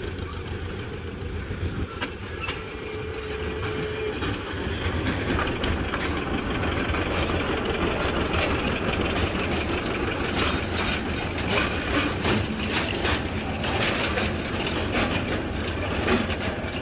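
Ruston narrow-gauge diesel locomotive's engine running as it travels, a steady low drone that grows louder about a third of the way in. Rapid metallic rattling and clanking joins it from about halfway.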